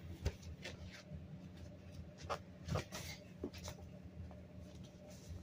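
Handling noise: soft rustles and a scatter of light knocks and clicks, the sharpest about a quarter second in and again near three seconds in, over a low steady hum.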